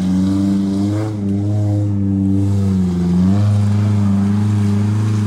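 Supercharged 1600 16-valve Vitara four-cylinder engine of a modified Suzuki Jimny trial car, held at steady high revs as it pulls through mud. Its pitch wavers, sagging briefly past the middle, then picks back up.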